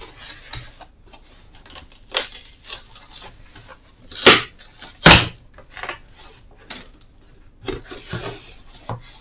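Cardboard box being opened by hand: the flaps rub and scrape, with a few short sharp sounds, the two loudest about four and five seconds in.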